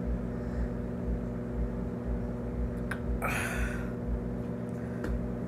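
A person drinking water from a bottle in gulps, then a click and a short breathy exhale about three seconds in, over a steady low hum.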